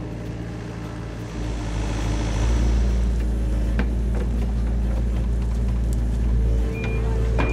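Compact excavator's diesel engine running steadily, working harder from about a second and a half in, with a few knocks. Near the end its travel alarm starts beeping.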